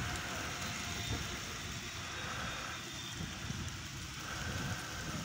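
Helicopter running on the ground, heard at a distance as a steady engine drone, with wind buffeting the microphone.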